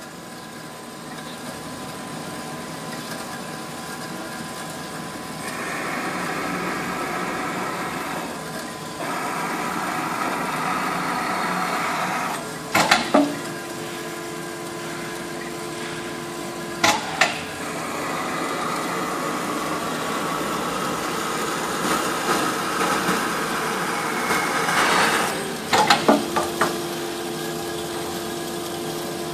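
Victor Auto-15HSV automatic horizontal band saw running, its blade sawing through a wooden block with a steady machine noise. Twice the machine clanks sharply as its automatic cycle moves on, with a steady low hum for a few seconds after.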